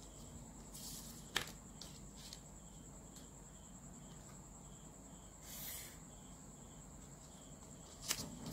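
Faint handling sounds of a plastic ruler and marker on paper: a couple of sharp clicks and a short scratch as a line is drawn, over a steady high-pitched whine.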